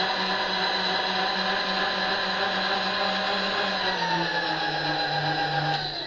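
Mill-drill table power feed's motor and gear train whining steadily as it drives the table. About four seconds in the whine slows and drops in pitch, and near the end the feed shuts off, its pitch falling as it winds down.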